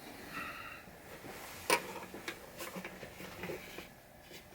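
Scattered light clicks and clinks of metal hand tools being handled while looking for a smaller socket, with one sharper click a little under two seconds in.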